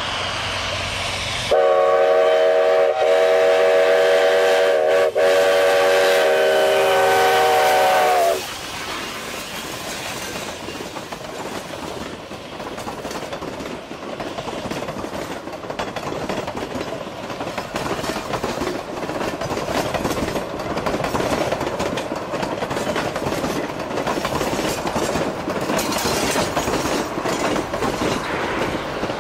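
A train horn sounds one long blast of about seven seconds, several notes at once, dipping briefly twice. Then a train rolls past with a steady rumble and the clickety-clack of its wheels on the track.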